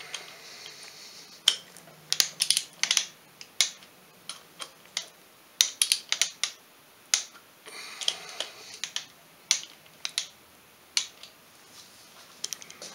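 Ratchet-head torque wrench tightening the cylinder head nuts of a Polaris two-stroke 400 ATV engine. Sharp clicks come in quick clusters, with stretches of rapid ratcheting at the start and about eight seconds in, as the head nuts are torqued down to spec.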